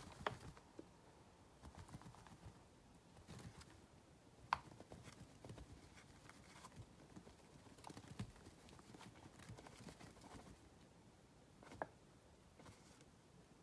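Near silence: plain flour poured from a paper bag into a glass bowl on a kitchen scale, heard only as faint scattered soft taps, with two sharper clicks, one about four and a half seconds in and one near the end.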